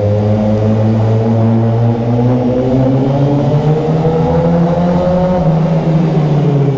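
Yamaha FZ6R's 600 cc inline-four engine running under way, its pitch climbing slowly as the bike accelerates in one gear, then easing off slightly near the end.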